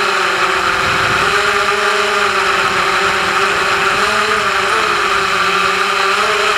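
FPV quadcopter's electric motors and propellers whining steadily, the pitch wavering slightly up and down with throttle.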